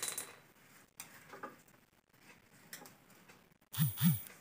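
Faint light tapping and scraping of a metal snake hook against a shelf as a cobra is worked off it. Near the end come two short, loud sounds in quick succession.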